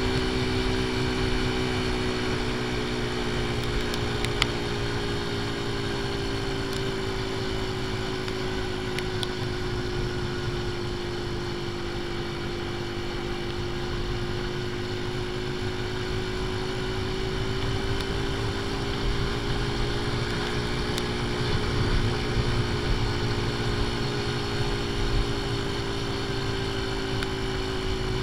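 AJS Tempest Scrambler's 125 cc single-cylinder engine running steadily at road speed, with wind rush, its ignition timing set half advanced. The engine note sags slowly through the first half and climbs again later on.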